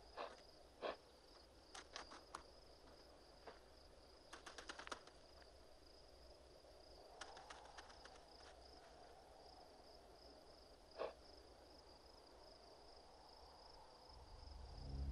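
Faint, sparse clacks of dry bones knocking together as they are picked through, a few single knocks and one quick cluster, over a quiet steady high-pitched tone. Near the end a low note of orchestral music swells in.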